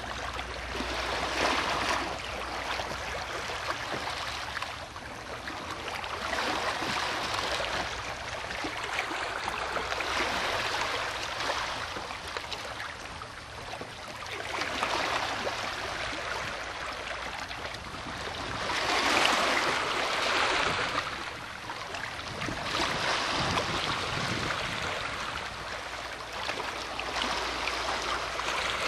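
Small waves washing against the shore, swelling and easing about every four seconds, the loudest surge a little after the middle.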